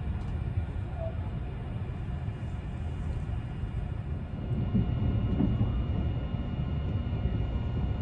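Tobu Spacia limited express train running, a steady low rumble heard from inside the passenger car.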